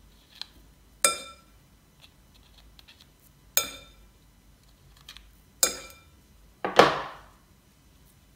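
A kitchen knife clinking against a fluted metal tart tin and ceramic bowl while trimming tart dough: four sharp, briefly ringing clinks, the last a double and the loudest, about seven seconds in.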